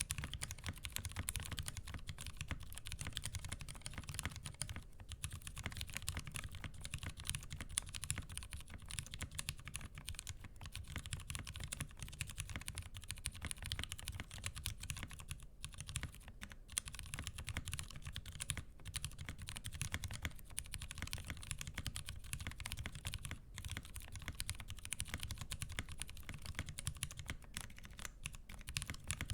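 Continuous typing on a CableCarDesigns Cypher mechanical keyboard with tactile switches (Kailh Pro Burgundy housings with Razer Orange stems, lubed with 205g0) under GMK keycaps on a polycarbonate plate. The keystrokes come in a dense, steady stream, broken by a few short pauses.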